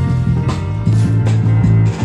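Live street band playing: a drum kit keeps a steady beat of about two hits a second over held bass notes, with acoustic guitar and keyboard.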